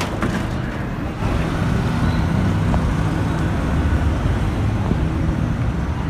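Steady low rumble of road traffic, with a vehicle engine humming from about a second in and some wind on the microphone.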